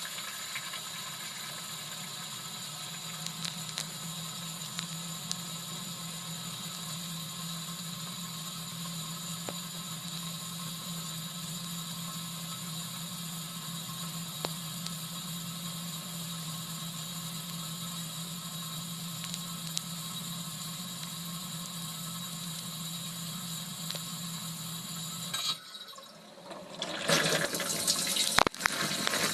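LG dishwasher running mid-cycle, recorded from inside the tub: a steady low pump hum with an even hiss of water. Near the end the hum cuts out for a moment, then louder water spraying and splashing starts up close.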